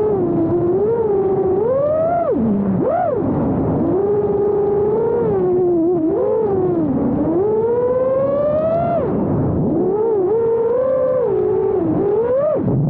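Motors of a 5-inch FPV freestyle quadcopter on a 6S battery, whining with a pitch that rises and falls continuously with throttle. The pitch dips sharply several times, about two and three seconds in, again near nine seconds, and just before the end.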